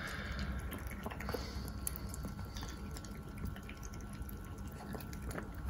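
Mame shiba puppy eating kibble softened in hot water from a plastic bowl: scattered small wet clicks and smacks from its mouth in the soggy food.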